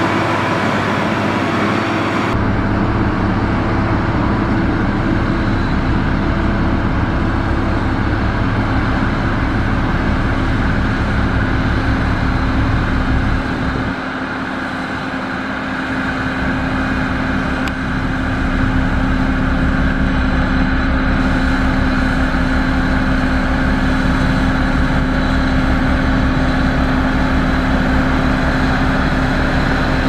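Heavy diesel engines of a SANY motor grader spreading gravel with its blade and a road roller working close behind, running steadily with a low pulsing rumble. The sound dips briefly about halfway through, then returns.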